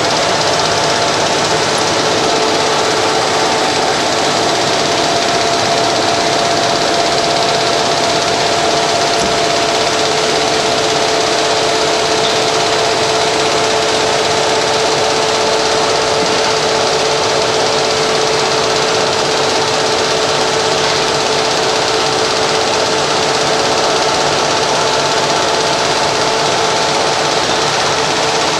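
Galaxy ProPac GM-550 straight-line folder-gluer running: a loud, steady mechanical whir of its belt transports and electric drive motor, with a few steady whining tones over it.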